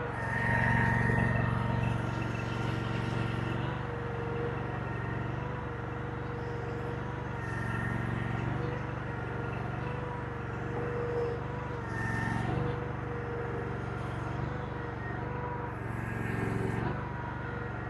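Chinese mini skid steer's engine running with a hydraulic whine, rising several times as the bucket is worked, dragging dirt back to fill the bucket.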